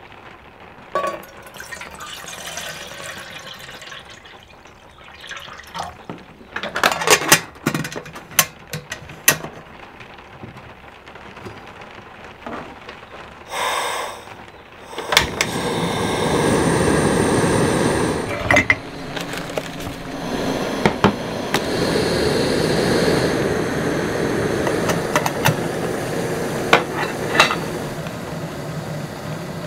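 Water poured into a metal kettle and clinks and clicks as the kettle is set on a portable two-burner gas stove. About halfway through, the burner lights and runs with a steady hiss under the kettle.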